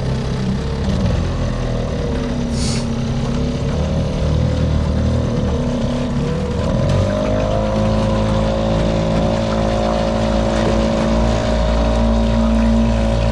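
Motor engine running steadily under way; about halfway through its pitch rises and then holds higher and a little louder, as it picks up speed.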